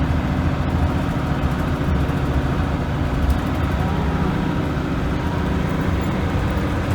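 Leyland National Mk2 bus's Leyland L11 diesel engine running steadily.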